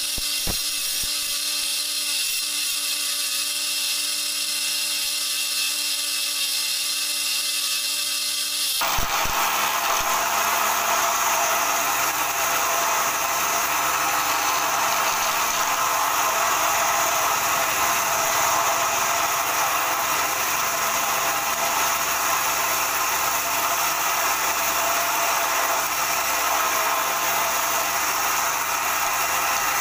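A homemade wood lathe runs while a hand-held turning chisel cuts a spinning wooden spindle, making a steady whir. About nine seconds in, the sound changes abruptly and becomes louder and fuller.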